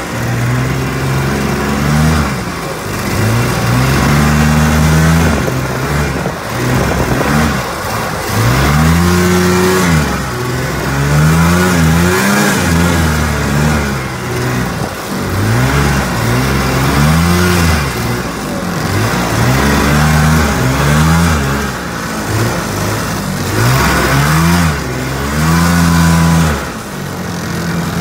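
Vintage John Deere snowmobile's two-stroke engine heard from the rider's seat, revving up and down over and over as the sled works through deep powder snow. The pitch rises and falls every couple of seconds.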